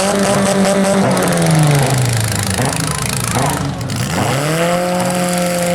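A demolition-derby compact car's engine revving hard: held at high revs, dropping off about two seconds in, then climbing back to high revs about four seconds in, over a loud general din of the arena.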